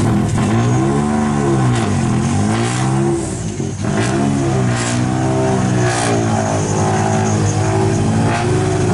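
Peugeot 208 Rally4's turbocharged three-cylinder engine revved repeatedly, its pitch rising and falling about once a second, with a few sharp cracks in the middle.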